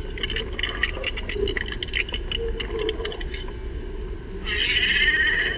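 Animatronic T-Rex skeleton hatching from an egg, playing dinosaur sound effects through its small speaker as its jaw opens: a run of chattering growls, then a louder rough screech about four and a half seconds in that lasts about a second.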